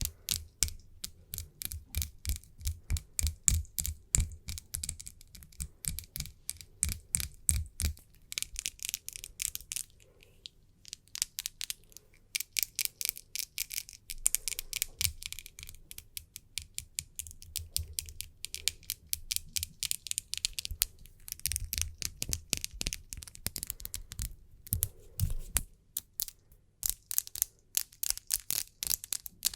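Fingernails tapping in quick, irregular clicks, mixed with stretches of hands rubbing together, with a brief pause about ten seconds in.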